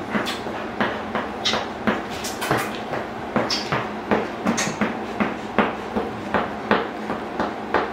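Pit bull's tail thumping on a plywood floor in a steady rhythm, about two or three knocks a second, over a faint steady low hum.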